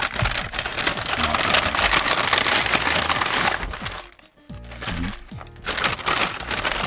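Brown paper takeout bag rustling and crinkling as it is handled and a paper-wrapped burger is pulled out of it, in two long stretches with a brief pause about four seconds in.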